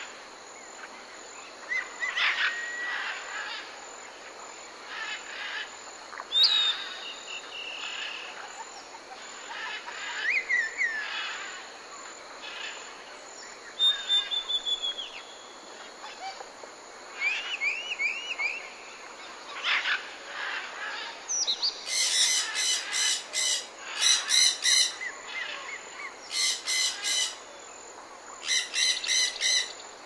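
Rainforest bird chorus: assorted whistles, chirps and gliding calls from several birds, over a steady high-pitched drone. In the last third come four bursts of rapid, buzzy pulsed calls.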